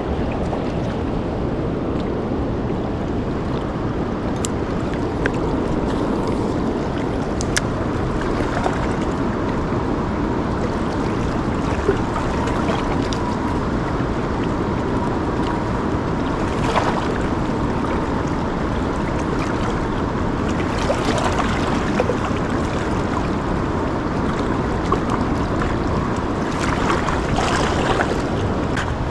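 Steady wind buffeting the microphone over the wash of river water, with a few faint clicks.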